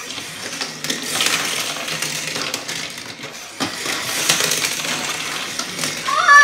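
Die-cast toy cars rattling and clattering as they are pushed and crashed around a plastic derby playset arena, with sharp knocks against the plastic track and fence. A child's voice rises into a long held shout near the end.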